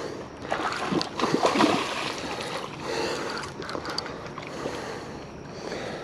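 A large hooked fish thrashing and splashing at the water's surface as it is reeled in to the bank, loudest between one and two seconds in.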